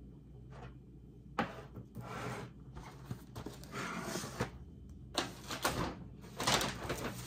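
Groceries being handled on a table: rustling and knocking as a cardboard pasta box is set down and food cans are picked up, in two spells of a few seconds each.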